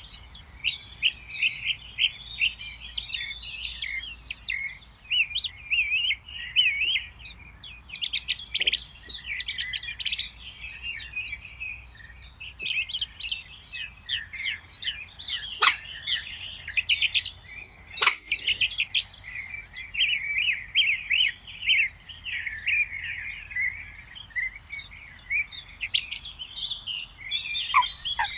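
Many small songbirds singing and chirping at once in a dense, continuous chorus of quick high notes. Two sharp clicks stand out about halfway through.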